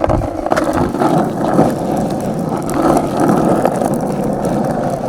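Skateboard wheels rolling over the ground in a steady rumble, the bearings freshly cleaned and lubricated.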